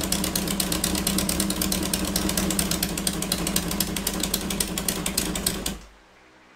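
Honda CB750 air-cooled inline-four engine running steadily with a rapid, even exhaust pulse; it cuts off near the end.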